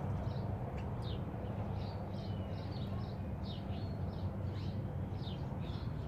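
Small birds chirping: many short, thin, high chirps, a few each second, over a steady low background hum.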